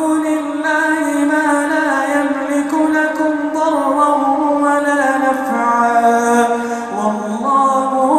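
A man reciting the Quran in a slow, melodic tajweed chant, drawing out long held notes with ornamented turns in pitch. About seven seconds in, the voice drops to a lower note, then rises again at the end.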